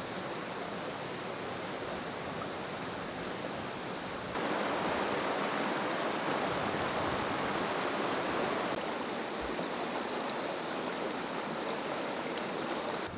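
Shallow mountain stream running over rocks, a steady rush of water. It gets louder about four seconds in and eases back after about nine seconds.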